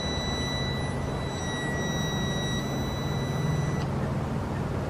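Signal level meter giving its audible alignment tone while a TV antenna is aimed: a steady high beep-tone that tracks the received signal. It cuts off shortly before the end, over a steady low rumble.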